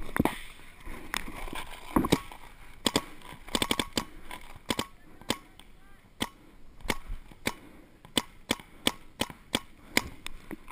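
Paintball markers firing: sharp compressed-air pops, some single and some in quick strings of several shots.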